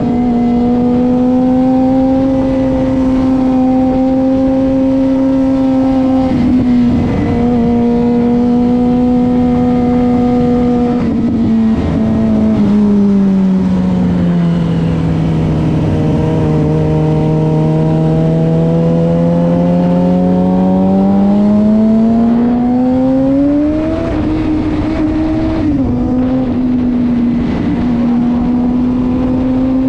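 Suzuki GSX-R600 inline-four engine running steadily at cruising speed under wind noise. Its pitch sinks slowly as the throttle eases off from about twelve seconds in, climbs again past twenty seconds, and drops quickly about twenty-six seconds in.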